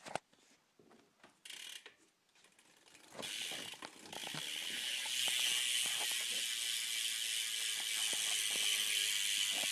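Stock Verde BMX rear hub freewheeling, its pawls clicking so fast they blend into a buzzing tick as the wheel spins. It starts a few seconds in after some light knocks, gets louder, then holds steady.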